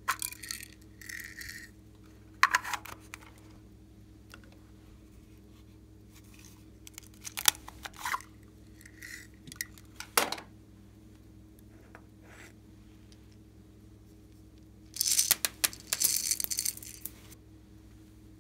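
Small plastic craft beads and sequins poured out of little toy containers, rattling in short scattered bursts. A longer, denser rattle comes about fifteen seconds in, as a load of blue pearl beads is tipped out.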